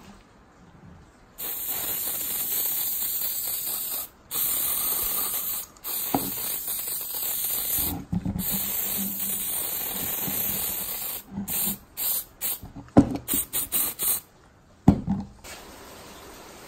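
Aerosol spray can spraying in four long hisses of about two seconds each, then a string of short puffs, with two sharp knocks near the end.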